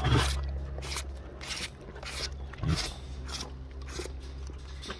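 Tigers licking up cream, their rough tongues making repeated short rasping scrapes, about two or three a second.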